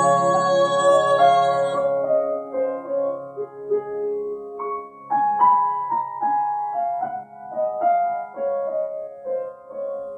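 A woman's sung held note, with piano accompaniment, ends about two seconds in. A grand piano then plays the closing phrases alone as a series of gentle chords and notes.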